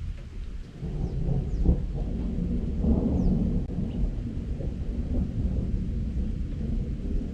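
Thunder rumbling, swelling about a second in and rolling on as a deep, uneven rumble, with a few faint high bird chirps.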